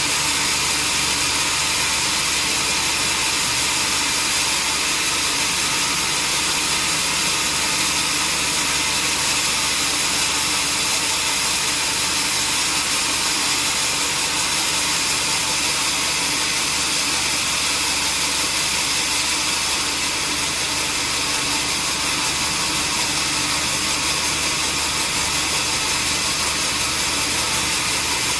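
Sawmill saw running steadily, a continuous mechanical whir and hiss with a low hum underneath.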